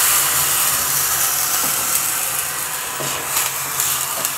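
Water just added to a hot spice tempering in a small aluminium pan, sizzling and hissing loudly and slowly dying down. A metal spoon stirs the pan near the end.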